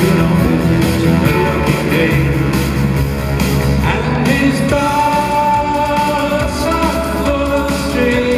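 Live synth-pop band performance in an arena: a male lead vocal over keyboards, drums, bass and acoustic guitar. Long held notes come in about five seconds in.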